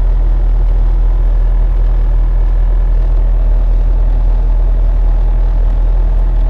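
Bobcat T300 skid-steer's diesel engine running steadily at a constant speed.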